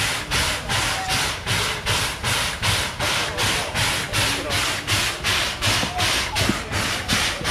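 Standing C11 325 steam locomotive hissing in a steady, even rhythm of about three puffs a second, the pulsing exhaust of its steam-driven pump while it waits at the platform.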